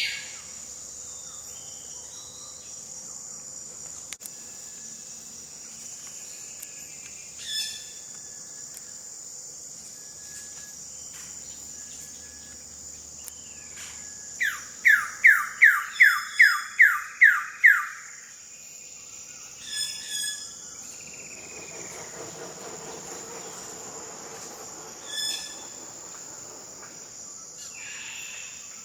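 Wilson's bird-of-paradise calling: a loud series of about nine quick notes, each falling in pitch, about halfway through, over a steady high-pitched drone of forest insects. A few short sharp calls sound singly at other moments.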